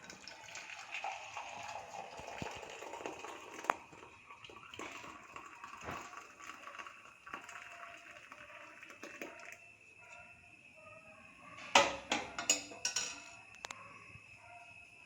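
Hot herbal tea decoction poured through a strainer, a steady splashing trickle for about ten seconds. This is followed by a quick cluster of sharp clinks and knocks near the end, the loudest part.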